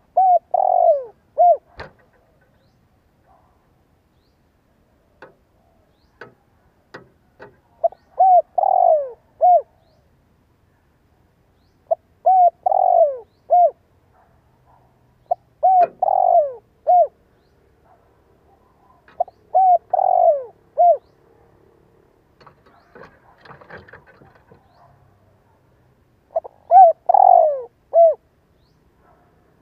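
Spotted dove singing its cooing song. Six phrases at uneven gaps of a few seconds, each three or four short coos with a longer falling note in the middle. It is the male's advertising call, played from a decoy bird to set other doves singing.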